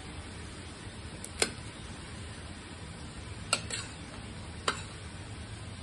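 Metal spoon and fork clinking and scraping against a ceramic plate while eating fried rice: four sharp clinks, the first about a second and a half in and the rest in the second half. A steady background hiss runs underneath.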